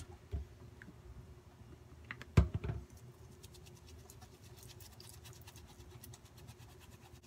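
Wet makeup brush scrubbed back and forth over the ridges of a silicone brush egg: soft, rapid scratching and ticking. One louder knock comes a little over two seconds in.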